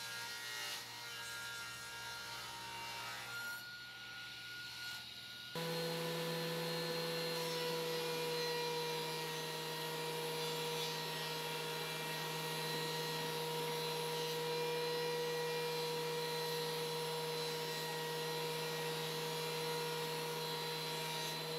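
A table saw ripping hard maple. About five seconds in, a Ridgid benchtop thickness planer takes over, running with a louder, steady whine as boards are fed through.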